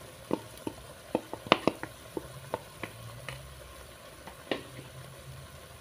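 Irregular sharp clicks and light taps from a wok full of lala clams and a cooking utensil, about ten in all and unevenly spaced, over a faint sizzle.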